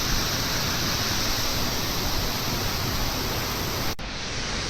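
La Coca Falls waterfall: a steady rush of falling water. It breaks briefly about four seconds in and comes back slightly quieter.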